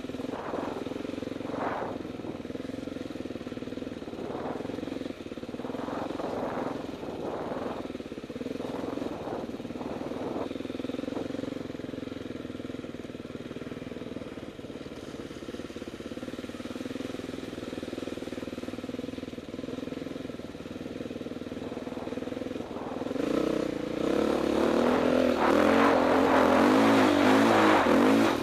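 Small off-road vehicle engine running along a trail at low throttle, with several brief throttle rises in the first ten seconds. From about 23 seconds in it revs harder and gets much louder.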